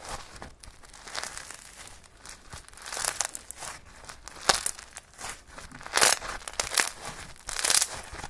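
Slime being squished and stretched by hand, giving irregular crinkly, crackling bursts, with several louder ones spread through the stretch.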